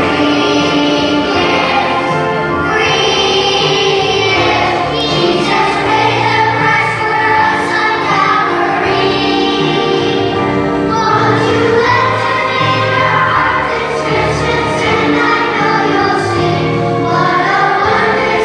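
Children's choir singing a Christian Christmas song in unison over a music accompaniment.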